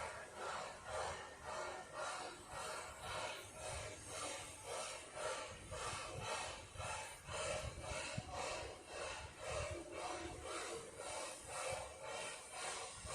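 Narrow-gauge NA-class 2-6-2T steam locomotive 12A chuffing steadily, its exhaust beats coming a little over two a second.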